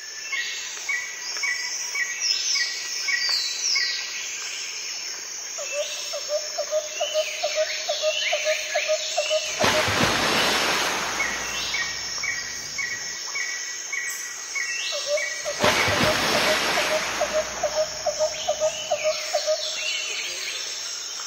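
Outdoor nature soundscape of several birds calling and singing, with chirps, falling whistles and runs of evenly repeated notes. Twice a rushing noise swells up for about two seconds.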